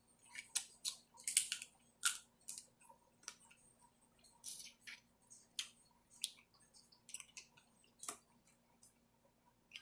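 Close-miked eating of a seafood boil: irregular sharp clicks, cracks and wet smacks of shells being handled and food being chewed.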